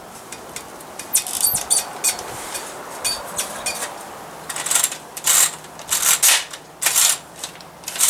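Irregular short scrapes, rustles and light clinks of a kerosene heater's sheet-metal wick holder and its new fibre wick being handled and turned over, in two clusters about a second in and again from the middle on.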